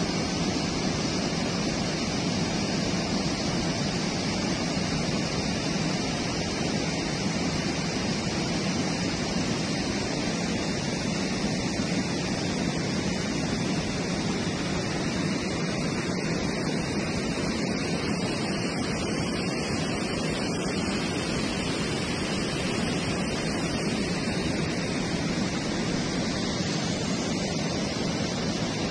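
Storm-swollen muddy floodwater rushing down a dry riverbed and pouring over a low weir across the channel: a steady rush of water.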